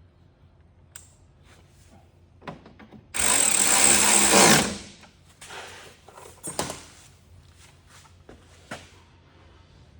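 A power drill runs in one burst of about a second and a half, its pitch dropping as it winds down. A few light knocks and clicks come before and after it.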